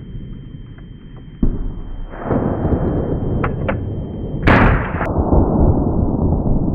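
A single loud gunshot about four and a half seconds in, over a steady low rumble, with a couple of faint clicks shortly before it.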